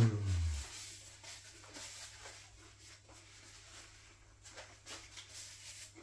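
A man's closed-mouth 'mmm' of enjoyment, falling in pitch and fading within the first half second, then faint chewing and the rustle of a paper napkin.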